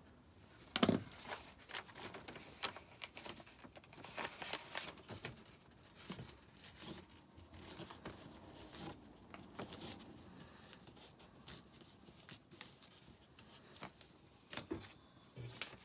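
Thin decoupage paper rustling and crinkling as it is handled and torn away along a line wetted with a water pen, with one sharp knock about a second in.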